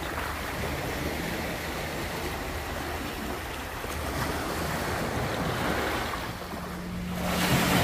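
Small sea waves washing onto a sand-and-pebble shore, with some wind on the microphone; the wash swells near the end. A faint steady low hum comes in during the last couple of seconds.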